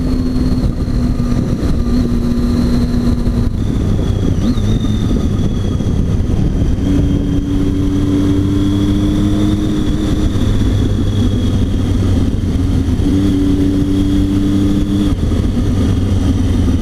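Triumph Tiger 800 XC's three-cylinder engine running while the motorcycle is ridden along the road, under a heavy rush of wind and road noise. The engine note holds steady for stretches and shifts pitch several times as the speed changes.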